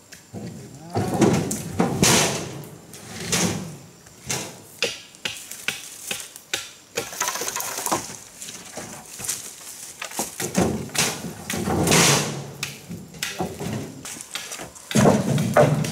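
Firewood being handled: irregular wooden knocks and thuds, some sharp and some dull, with rustling between them.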